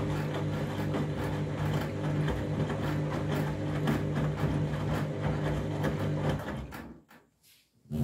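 Candy front-loading washing machine tumbling a wet, sudsy load: a steady motor hum with water sloshing in the drum. The drum stops about six and a half seconds in and the sound dies away, followed by a single thump at the very end.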